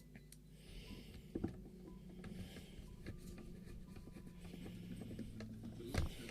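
Light handling noises from refitting the bottom cover on a radio transceiver: faint scraping and rubbing with a few small knocks, the clearest about a second and a half in and near the end, over a steady low hum.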